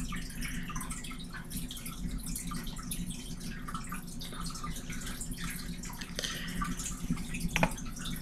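Quiet room tone: a steady low hum with faint scattered ticks and crackles.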